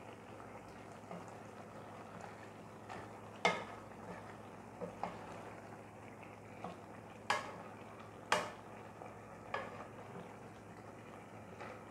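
Wooden spoon stirring a chicken liver and green bean stir-fry in a stainless steel pot, knocking against the pot's sides at irregular intervals, the loudest knocks a few seconds in and twice more past the middle, over a steady faint sizzle of the food cooking.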